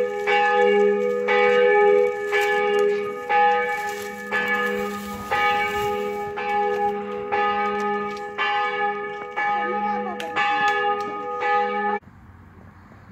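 A church bell tolling, struck about once a second, each ring fading before the next, until the sound cuts off abruptly near the end.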